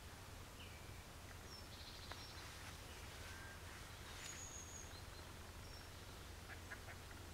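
Faint, scattered bird calls: short high chirps and whistles, with one clearer high whistle about four seconds in, over a quiet background with a low steady hum.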